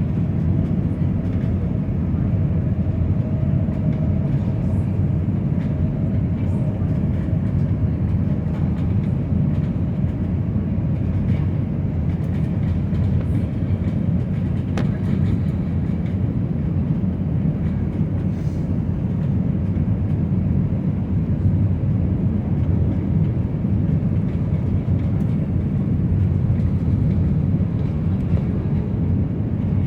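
Steady low rumble of engine and airflow noise inside the passenger cabin of an Airbus A319 airliner.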